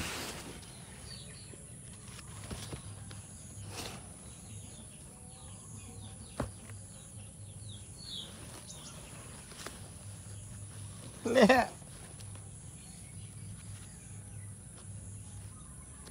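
Outdoor background of small bird chirps and a steady high insect drone, with light rustling and a few clicks as a kitten is handled. About eleven seconds in there is one short, loud, wavering vocal call.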